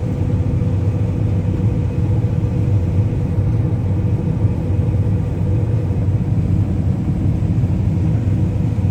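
Combine harvester running, heard from inside its cab: a steady low rumble with a faint constant whine above it.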